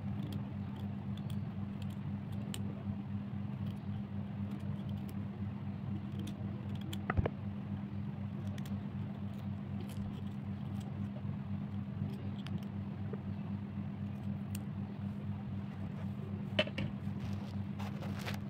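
Kitchen knife slicing a carrot held in the hand, with scattered light clicks of the blade and of pieces dropping onto a plate, and a sharper tap about seven seconds in. Under it runs a steady low hum.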